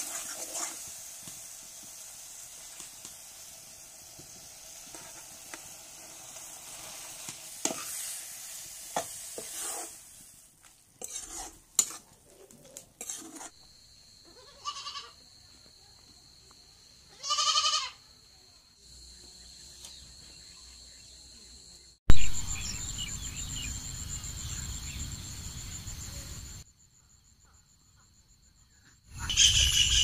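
Masala curry sizzling in a kadai as a spoon stirs and scrapes it, with scattered clicks. About halfway through a goat bleats twice, the second call louder and nearly a second long. Later, steady high-pitched insect calls sound over a low rumble.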